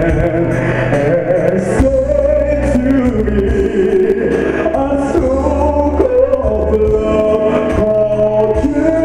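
A voice singing a slow ballad melody over instrumental backing with a steady bass, played through a venue's sound system in a large hall; one note is held long near the end.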